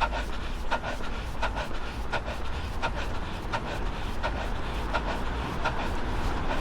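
A runner's footfalls on pavement, steady and even at about three every two seconds, over a low rumble of wind on the microphone.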